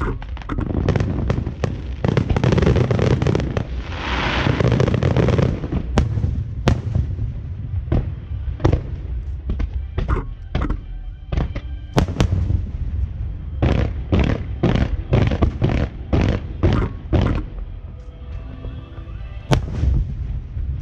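Fireworks display: dense crackling bursts for the first few seconds, then a long run of sharp, separate bangs, several close together in quick succession.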